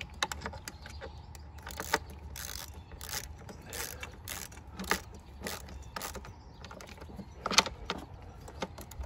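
Quarter-inch drive ratchet clicking as it tightens a screw into the plastic mass airflow sensor housing. It comes in short ratcheting bursts, nearly two a second, with loose single clicks between them, and it thins out near the end.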